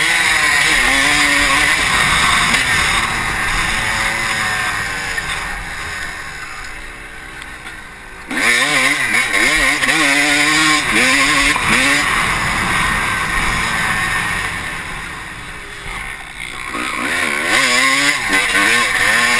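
Honda CR250 two-stroke motocross bike ridden hard, the engine revving up and down in pitch with wind rushing over the helmet camera. The engine fades off from about five to eight seconds in, then comes back on sharply. It eases off again around fifteen seconds in before revving up once more.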